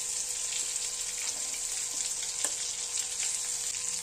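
Pointed gourd pieces frying in hot mustard oil in a kadhai: a steady sizzle with small crackles as a steel spoon scoops them out, and a light knock of the spoon against the pan about two and a half seconds in.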